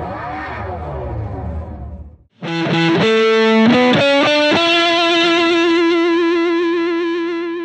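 Distorted electric guitar sting: a short riff of changing notes, then one held chord that rings and slowly fades. It is preceded by about two seconds of low rumble with sweeping tones, which cuts off just before the guitar comes in.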